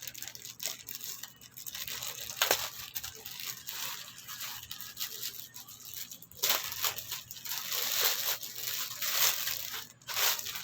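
Packaging crinkling and rustling in irregular handling noises as a parcel is opened, with a sharper crackle about two and a half seconds in and a busier stretch in the second half.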